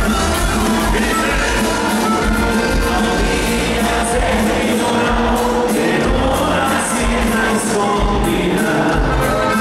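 Live band playing a song with a singer, amplified through the concert sound system, heard from among the audience.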